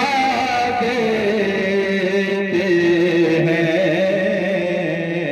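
Devotional chanting: a singing voice drawing out long held notes that slowly waver and drift in pitch, without a break.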